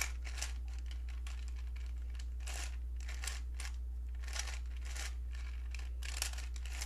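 A new, unlubricated Rubik's brand 4x4 cube being turned by hand: irregular plastic clicks and scraping swishes as its layers turn, stiff and tight. A steady low hum runs underneath.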